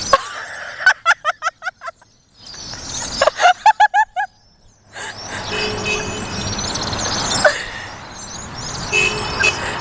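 A large flock of birds calling. In the first half there are several quick series of short, repeated calls, broken by sudden silent gaps. The second half is a dense, continuous chorus of chattering.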